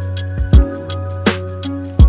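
Background music with a steady, slow beat: a kick drum and a snare alternate over a sustained bass line and chords.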